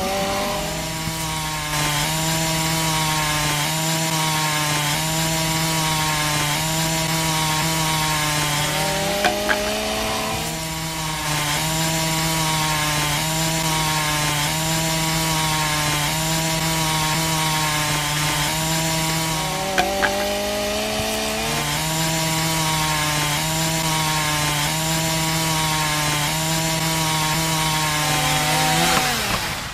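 A small motor running steadily with a buzzing hum. Its pitch sags and recovers twice, about a third and two thirds of the way through, then winds down near the end.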